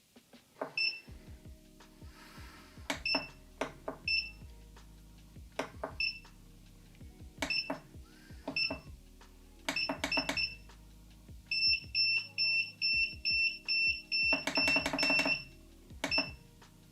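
Keypad beeps from a digital humidity controller as its buttons are pressed: single beeps a second or two apart, then a fast run of beeps with clicks, as the set humidity is stepped up to 85%. A faint steady low hum runs underneath.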